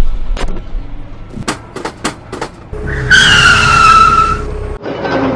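Logo-intro sound effects: a few sharp hits, then a car tyre screech lasting about two seconds, pitched slightly falling, over a low rumble that cuts off abruptly.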